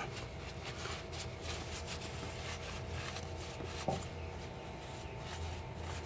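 Faint rubbing and handling noises with a small knock about four seconds in, over a low steady hum.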